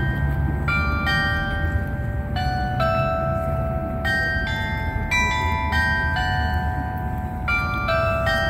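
Glockenspiel clock-tower bells playing a tune: single struck notes about two or three a second, each ringing on under the next. A steady low rumble lies underneath.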